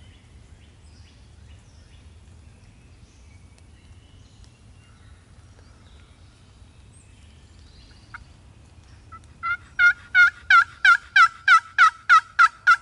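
Wooden turkey box call worked by hand: a loud, quick run of about a dozen evenly spaced hen-turkey yelps, about three a second, starting some three-quarters of the way through. It imitates a hen calling, to draw a gobbler back in.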